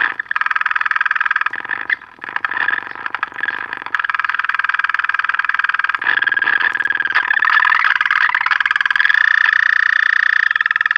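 Guild AA5 tube AM radio's speaker putting out a loud, rapidly pulsing buzz with a whistling tone that shifts in pitch, settling into a steady whistle near the end. The set is oscillating, the motorboating-type fault it came in for, which the repairer finds a different symptom from what a bad filter capacitor would give.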